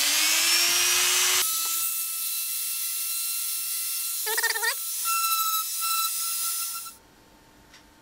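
Small electric mini drill spinning a felt polishing tip at high speed to polish a microwave button's contact membrane. Its pitch rises over the first second or so, then it runs with a steady high whine and stops abruptly about seven seconds in.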